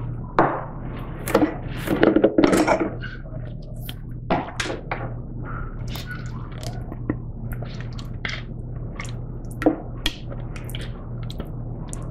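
A plastic food processor bowl being handled and a spatula scraping thick pumpkin puree out of it: irregular knocks and clatters, most of them in the first few seconds, then sparse light taps and scrapes.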